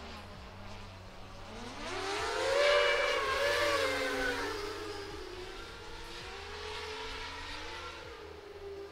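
7-inch FPV quadcopter with T-Motor F90 2806.5 1500Kv motors and Gemfan 7035 props, its motor and propeller whine swelling to loudest about three seconds in, then easing off. The pitch glides up and down with the throttle.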